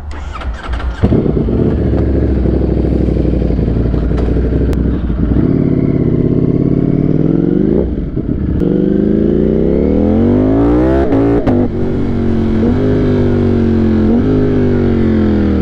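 Ducati Streetfighter V4's V4 engine starting about a second in and idling, then pulling away and accelerating, its pitch rising and dropping back at each upshift.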